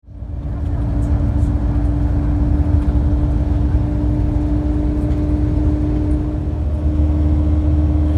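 Steady rumble of a moving vehicle heard from inside, with a steady low hum over it; it fades in over the first second.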